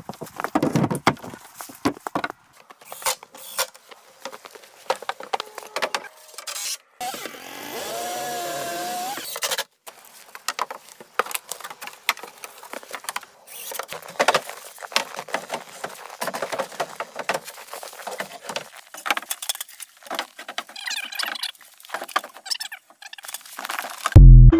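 Quick-cut sounds of carpentry on a plank building: a string of knocks, taps and clunks of wood and tools, with a power tool whirring steadily for about three seconds a third of the way in. Near the end a loud low boom opens the TikTok end jingle.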